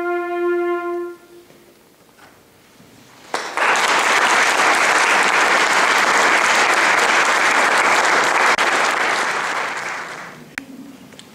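A flute piece ends on a held note, and after a short pause an audience applauds for about six seconds before the clapping dies away.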